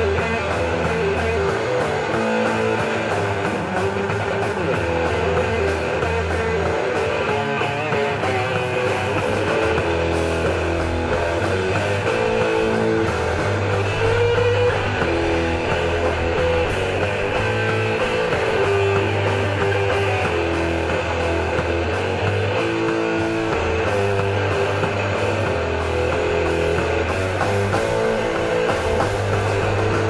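Live rock band playing loud and steady: electric guitar over held bass notes, with drums and regular cymbal hits.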